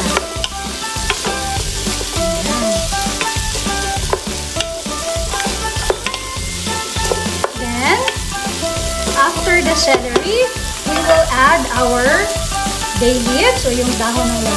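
Wooden spoon stirring diced carrots, celery and onion as they sauté in a pot, with sizzling from the pan and the spoon scraping and squeaking against the pot in irregular strokes.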